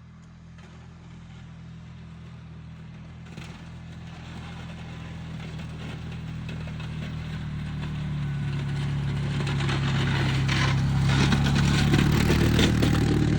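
A vehicle engine running and drawing steadily closer, growing louder throughout with a low, even hum and a rising hiss above it.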